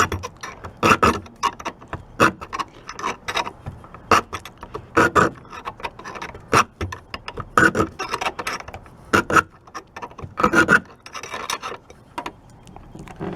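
Round file rasping against a door latch in short, uneven strokes, roughly one a second. The latch is being filed down so it no longer catches too tightly on a door that has shifted.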